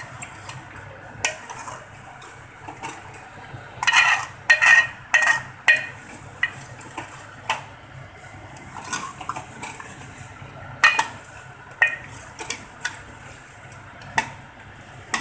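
Metal spoon stirring a thick meat curry in a metal pot, scraping and clinking against the pot's sides and bottom in irregular strokes. A cluster of sharper clinks comes about four seconds in, and another around eleven seconds.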